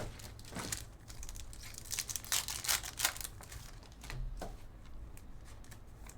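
Foil trading-card pack wrappers crinkling and tearing as packs are ripped open and the cards handled, in a run of short crackles that is busiest in the middle.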